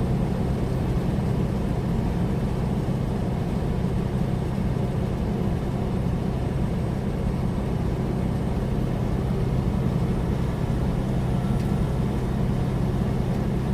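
Steady in-cab drone of a heavily loaded semi truck cruising at highway speed: a low engine hum under even road and wind noise, with no clicking.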